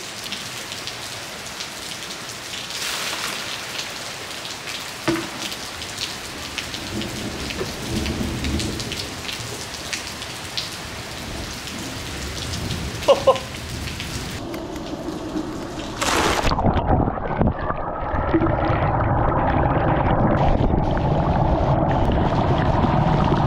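Dry ice bubbling and fizzing in a basin of water, a steady rushing hiss. About 16 seconds in it becomes louder and deeper, a close-up churning rumble.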